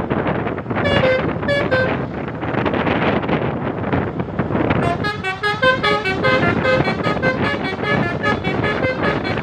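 Telolet basuri multi-tone horn playing a tune over steady road noise. A few short notes come about a second in, and a quick run of melodic notes starts about halfway through.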